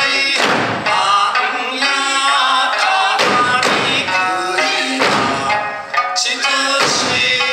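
Okinawan Eisa music: sanshin playing with a sung folk melody, punctuated by the dancers' barrel drums and hand drums struck together several times.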